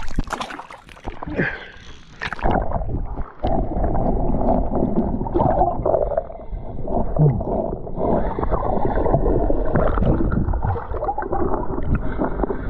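Lake water splashing and gurgling around a person wading in deep. About two and a half seconds in, the sound turns muffled and churning as the head-worn camera goes under the water.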